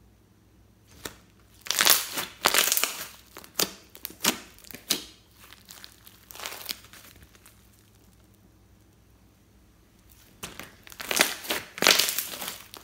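Slime being squeezed and pressed by hand, crackling and popping in bunches of short sharp bursts, with a few seconds' pause in the middle.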